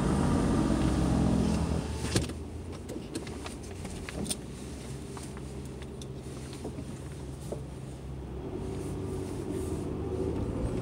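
Car's power window motor running for about two seconds, then stopping with a click. After that comes a steady low hum in the car cabin, and near the end the engine picks up as the car pulls away.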